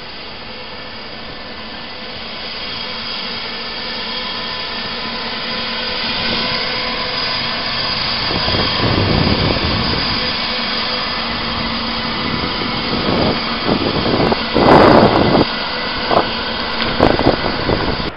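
Electric train running with a steady whine and hiss, getting louder over the first half, then several sharp knocks and clatters in the last few seconds.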